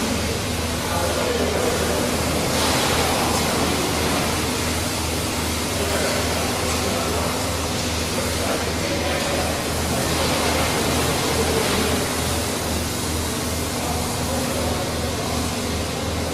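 Milking parlour machinery running: a steady mechanical hum and hiss with a low pulsing throb repeating a few times a second.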